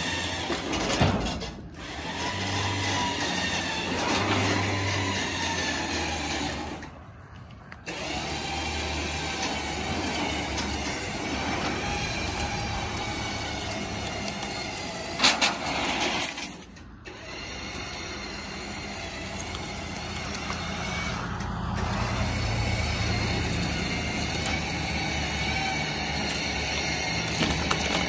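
A motor runs in stretches while a log is pulled off a trailer, cutting out briefly about seven seconds in and again around sixteen and twenty-one seconds. A few sharp knocks sound near the middle.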